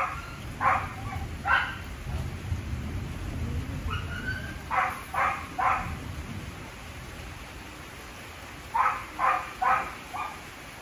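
A dog barking in three quick runs of three or four barks each, a few seconds apart, over steady heavy rain. A low rumble of thunder fades out over the first few seconds.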